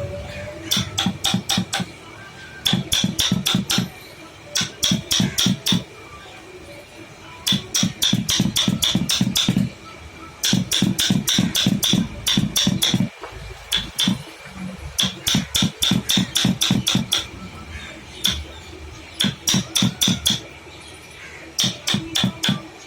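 Hammer tapping in quick runs of several strikes a second, each run lasting a second or two with short pauses between, typical of hand-carving wood with a hammer and chisel.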